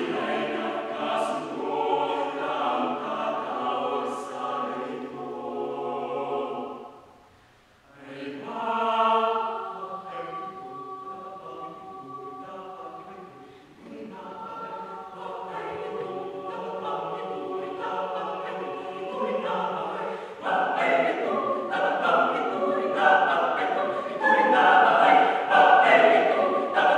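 Mixed chamber choir singing in close harmony, breaking off briefly about seven seconds in, then coming back in and building louder toward the end.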